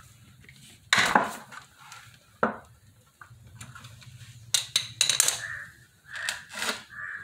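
A box spanner clinks and knocks against a motorcycle's oil drain plug bolt as the bolt is undone, in a few irregular sharp metal clicks. The loudest come about a second in and around five seconds in.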